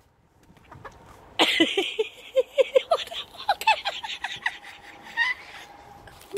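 Breathless, high-pitched laughter in quick short pulses. It starts about a second and a half in and thins out into scattered wheezy gasps.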